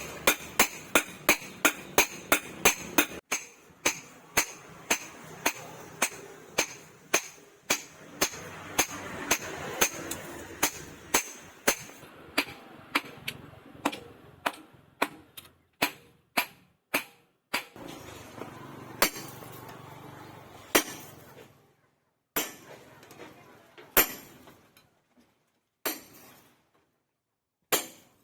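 Hand hammer striking steel on an anvil in forging blows, each strike ringing. The blows come steadily at about three a second at first, then slow and become more spaced out, with pauses toward the end.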